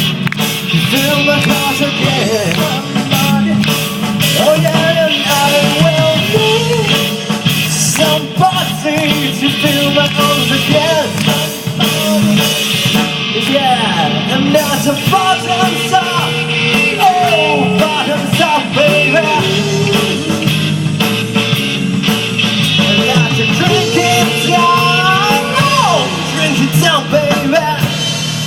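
Rock song played by a full band, with a lead melody line bending up and down in pitch over the steady band.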